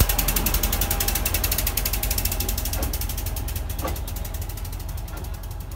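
Yellow rail maintenance vehicle passing and pulling away on the track: its engine runs with a fast, even clatter over a low hum, with a couple of single knocks from the wheels, fading slowly.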